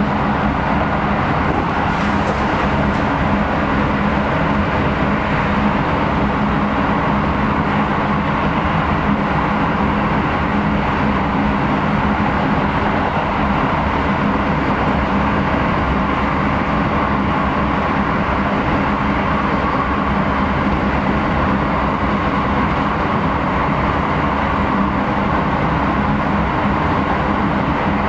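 Electric train running steadily at speed, heard from inside the car: an even rumble of wheels on rail with a low hum underneath.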